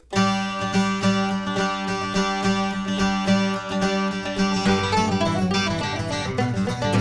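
Background music on plucked string instruments, starting after a brief cut right at the beginning, with a busier picked passage from about five seconds in.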